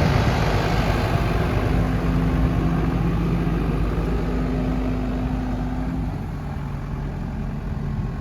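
New Holland L190 skid steer's diesel engine running steadily, with a higher hum coming in twice for a second or two. It drops a little in level after about six seconds.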